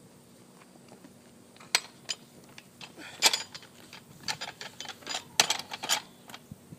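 Scattered sharp clicks and clacks, irregular and a few a second, like hard equipment being handled and set down.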